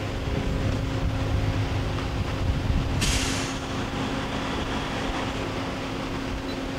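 Daewoo Puma 300LC CNC turning center running with a steady mechanical hum and low rumble. A short hiss comes about three seconds in and fades within half a second.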